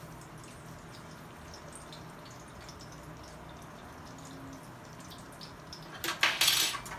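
Bread frying in oil in a pan, a faint steady sizzle with scattered light crackles. A brief loud noise cuts in about six seconds in.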